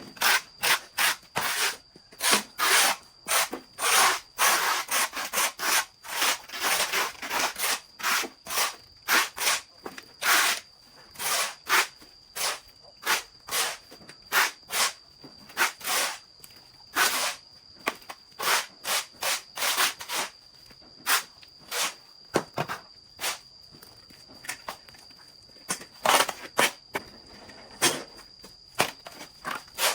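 Hand saw cutting wood in rasping back-and-forth strokes, one to two a second with short pauses, over a faint steady high-pitched tone.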